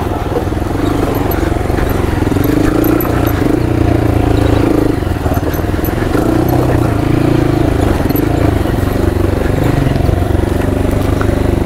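Honda motorcycle engine running steadily at low revs, the pitch rising and dipping a little with the throttle.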